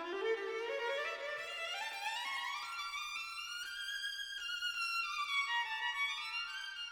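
Background music led by violin, a melody climbing step by step through a rising run and falling back near the end.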